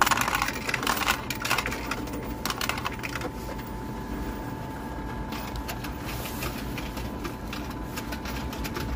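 Coins fed by hand into a self-checkout's coin slot, clattering and clicking through the coin acceptor. The clicking is dense for the first three seconds, then thins to scattered clicks over a steady faint hum.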